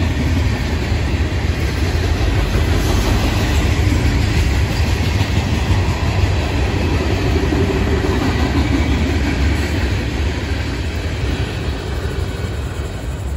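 Freight cars of a Florida East Coast Railway train rolling past on steel wheels and rails, a steady noise that fades a little near the end as the last cars go by.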